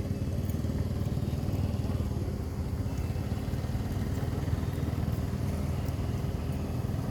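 Steady low rumble with a faint steady hum over it, unchanging in level.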